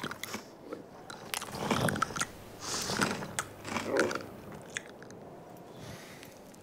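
A camel chewing on a paintbrush held in its mouth: a run of crunching, gnawing bites, loudest from about one and a half to four seconds in, then dying away.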